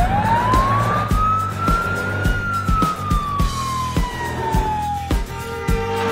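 A cartoon sound effect: one long tone that rises for about two seconds, then slowly falls and stops about five seconds in. It plays over background music with a steady beat.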